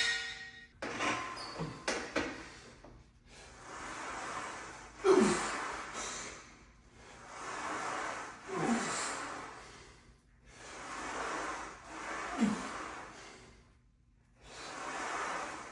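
Heavy, effortful breathing of a man pressing a Smith machine bar overhead: a long breath about every three and a half seconds, each starting with a short grunt that falls in pitch as he drives the rep. A few light clicks in the first two seconds.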